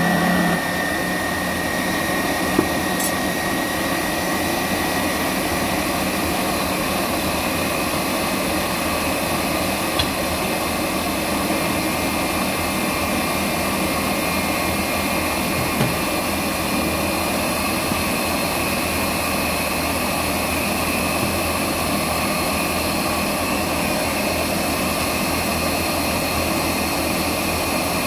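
Countertop blender running steadily, puréeing fresh corn kernels into a batter. The motor cuts off at the very end.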